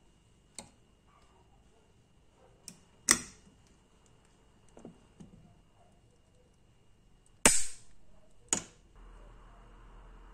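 Pliers and side cutters clicking and snipping on thin steel wire as a small coil spring is formed and its ends trimmed: separate sharp snaps, the loudest about three seconds in and two more near the end, with lighter clicks in between.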